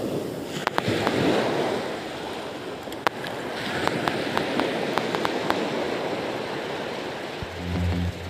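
Small waves breaking and washing up a beach, with a quick run of light clicks about halfway through. Music with a low beat comes in near the end.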